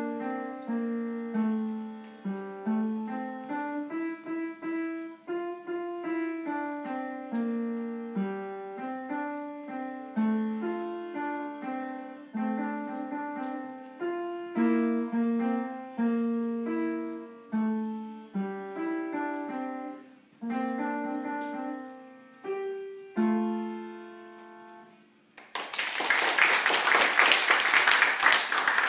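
An upright piano played by a child, single notes at an even pace; the piece ends with a last note left to die away. Near the end, applause breaks out, louder than the piano.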